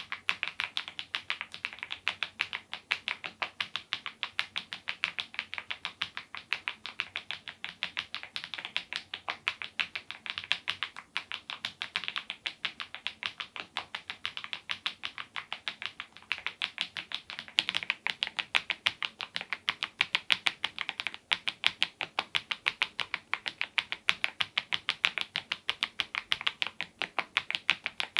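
Mechanical keyboard with HMX Cheese switches and smile-profile keycaps being typed on fast and continuously, a dense run of keystroke clacks. The typing gets a little louder about halfway through.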